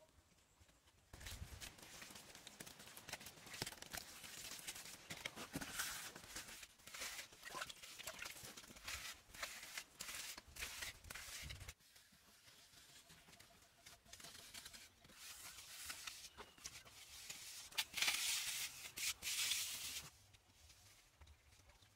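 Hands smearing and scraping wet mud plaster: a dense, rough rasping with many small scrapes and slaps. It drops to a quieter patch about halfway through, then grows loud again near the end as a split bamboo strip is rubbed over the wet plastered floor.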